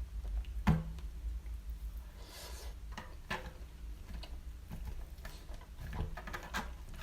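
A person chewing a mouthful of doner kebab meat and chips, with a few short, sharp mouth clicks scattered through it over a low steady hum.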